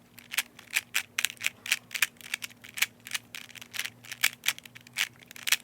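Plastic Rubik's Cube being scrambled by hand: its layers turn with a rapid, uneven clicking and clacking, about five clicks a second.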